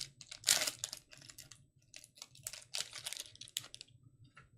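Foil trading-card pack wrappers crinkling and tearing in a series of short, quick crackles as the packs are handled and opened.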